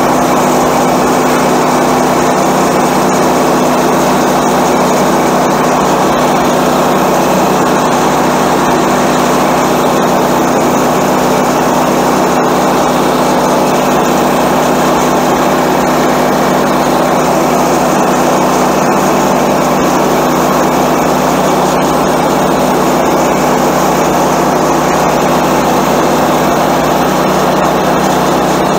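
Small gasoline engine of a Woodland Mills HM126 portable bandsaw sawmill running steadily while its band blade is pushed through a maple log.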